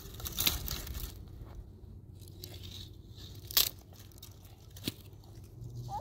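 Dry branches and twigs crackling and snapping as they are broken and gathered for firewood, with one sharp snap about three and a half seconds in.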